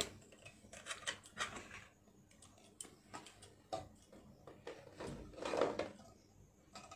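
Light clicks, taps and rustles of jewellery and its packaging being put away and picked up by hand, with a longer, louder rustle about five and a half seconds in.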